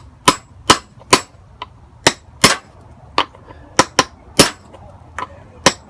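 A hammer tapping a socket to drive a wheelbarrow wheel bearing into its hub: about a dozen sharp metallic knocks, coming in short runs of two or three with brief pauses between them.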